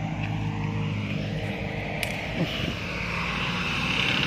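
Steady low engine hum that weakens after about two seconds, with a single click about halfway and a high hiss that swells near the end.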